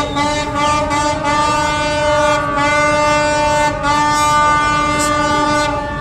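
A ship's horn sounding one long, steady blast of almost six seconds, cutting off just before the end. It is sounded in celebration as the stuck container ship is freed.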